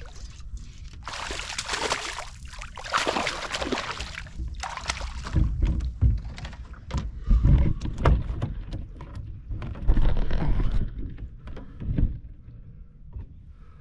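A hooked bass being brought in and landed from a boat: water splashing and sloshing for a few seconds, then a run of heavy knocks and bumps of handling against the boat.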